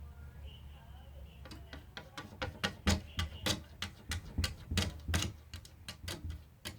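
A cat door's flap clicking against its frame as it is pushed and swings, an irregular series of sharp clicks starting about a second and a half in.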